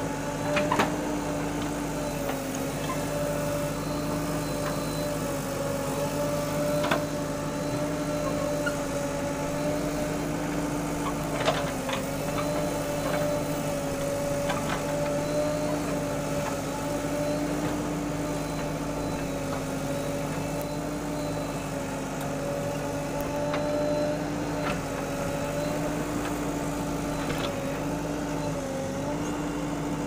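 JCB backhoe loader's diesel engine running steadily while its backhoe arm digs soil. A few short, sharp knocks sound through it, the loudest about eleven and a half seconds in. The engine pitch dips briefly near the end.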